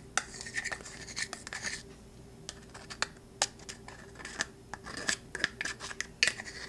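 Scraping and clicking as Crisco shortening is worked out of a small measuring cup into a stainless mixing bowl. The quick scrapes and taps come in two spells, with a few single clicks between.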